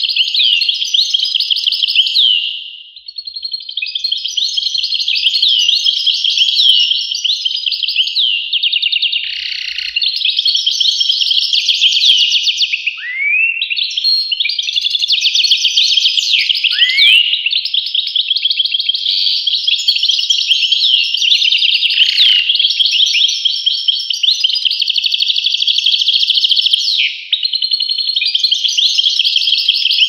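European goldfinch singing: a fast, high twittering song in long phrases, with brief breaks every few seconds and a few quick rising notes about halfway through.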